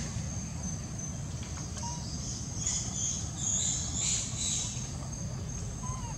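Insects shrilling steadily at a high pitch, swelling in several louder bursts between about two and a half and five seconds in, over a low background rumble.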